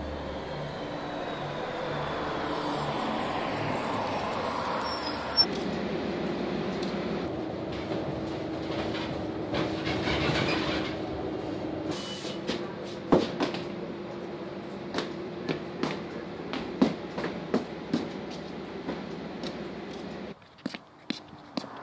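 City transit bus: it approaches and pulls up, then its engine and road noise hum steadily, heard from inside the cabin, with scattered rattles and clicks. Near the end the hum drops away suddenly, leaving a few sharp taps.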